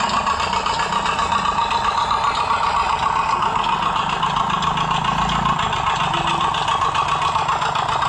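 Small engine of a miniature working-model concrete mixer running steadily, with a rapid, even beat.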